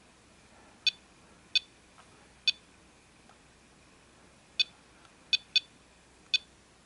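Ericsson GH337 mobile phone's key-press beeps: seven short, high beeps at uneven intervals, two in quick succession about five seconds in, as the keys are pressed to step through the calculator's operator options.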